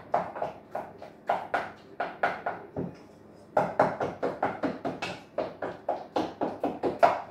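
Bananas being mashed by hand in a small metal bowl: quick, regular taps of the masher against the bowl, about four a second, with a brief pause about halfway through.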